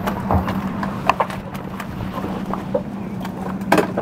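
A boat engine hums steadily under scattered knocks and clatters, the loudest about a second in and near the end.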